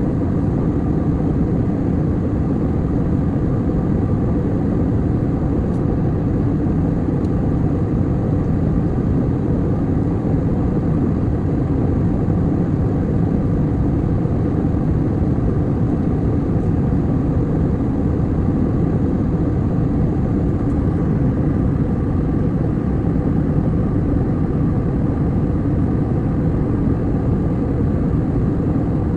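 Airliner cabin noise in flight: the steady low drone of the engines and rushing air, unchanging throughout.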